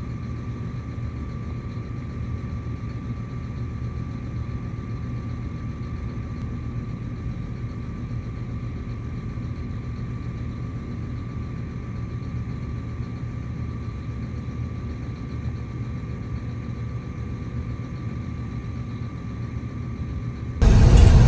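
An engine running steadily, a low rumble with a faint steady hum, unchanging in pitch and level. Near the end it cuts abruptly to a much louder truck engine heard from inside the cab.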